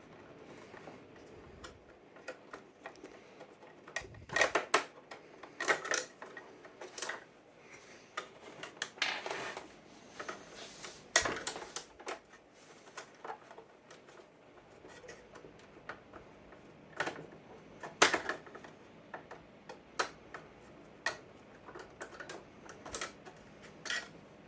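Slot screwdriver working long screws out of a 1982 Northern Telecom DisplayPhone's plastic housing: irregular clicks, scrapes and knocks of metal and plastic as the screws turn and come free and the parts are handled.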